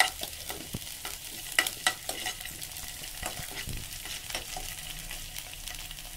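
Chopped onion, ginger and garlic sizzling in a little oil in a non-stick frying pan, with a spoon scraping and knocking against the pan as they are stirred. A sharp knock right at the start and a few more clicks about one and a half to two seconds in.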